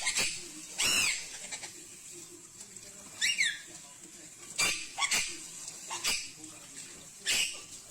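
Parrot giving about six short squawks, several of them falling in pitch. The clearest comes about three seconds in, as a downward-gliding call.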